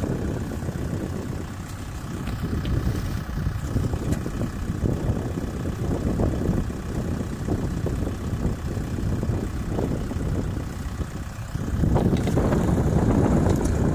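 Kubota M6040SU tractor's diesel engine running with the tractor standing, getting louder near the end.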